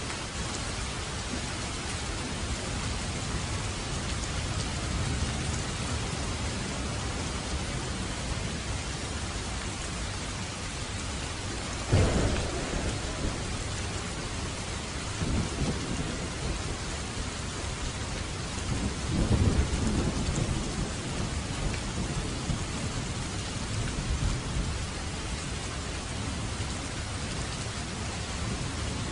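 Heavy rain falling steadily, with thunder: a sharp crack about twelve seconds in, followed by low rolling rumbles that swell and fade several times.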